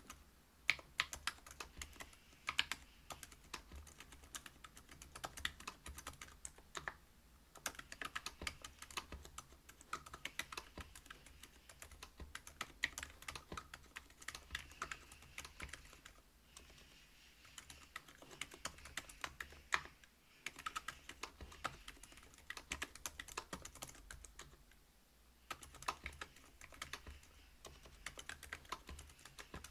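Typing on a Whale 75 mechanical keyboard with stock Silent Alpaca 62 g linear switches in a brass plate and Geekark PBT keycaps. It is a fast, irregular run of keystrokes with a few short pauses.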